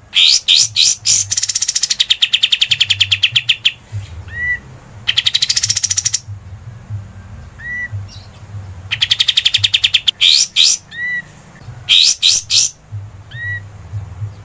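Kapas tembak songbird singing in loud bursts of very rapid, chattering trills, each one to two and a half seconds long, with short soft rising whistles in the pauses between them. A low hum runs underneath.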